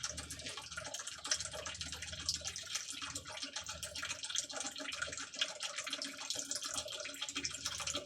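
Old power steering fluid running out of a Freightliner Cascadia's steering gear box drain hole, pattering steadily onto cardboard with small irregular drips and splashes.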